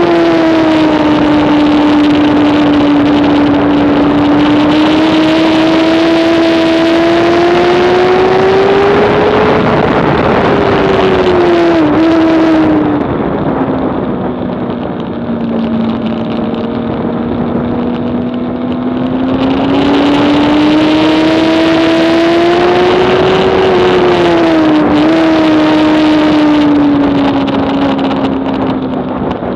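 2007 Honda CBR600RR's inline-four racing engine running at high revs under load, with its pitch climbing slowly and then falling away twice, each fall with a brief dip. Between the two falls it runs lower in pitch and duller for several seconds.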